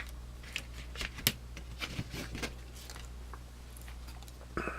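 A handful of small, sharp clicks and taps of aluminium-scaled Swiss Army knives being handled and set down, one swapped for the next, the loudest about a second in.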